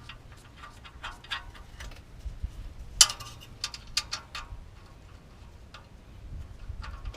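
Irregular metallic clicks and clinks of hand tools and hardware as new nuts and bolts are fitted on the exhaust, with one sharp, louder clank about three seconds in.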